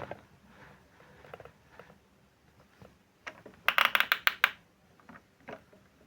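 Washing machine making scattered light clicks and taps, with a quick run of about seven sharp clicks a little past halfway.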